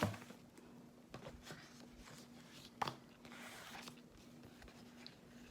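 Faint handling of a paper photobook album and its cards: soft rustles and light clicks, one sharper click near the middle, over a faint steady low hum.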